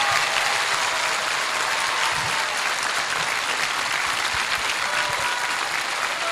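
A large crowd applauding, a dense, steady clatter of many hands clapping.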